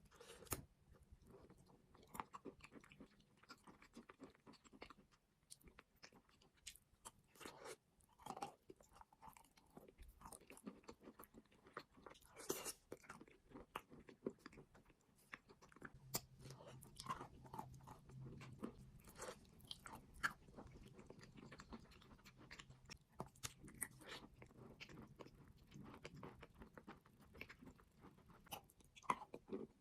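Close-miked biting and chewing of crunchy eating chalk and clay: many sharp, irregular crunches throughout.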